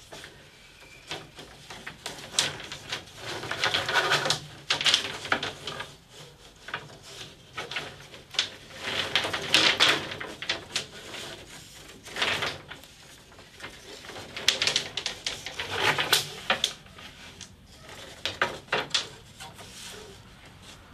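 Thin cedar strips clattering, knocking and sliding against each other and a table saw's steel top as they are lined up and stood on edge into a bundle. Irregular clicks and wooden knocks come in bursts, with scraping between them.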